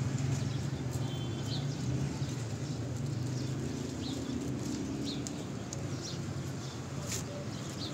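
Street ambience: a steady low traffic hum, with short bird chirps from the trees and footsteps on the paving stones. There is a sharp click about seven seconds in.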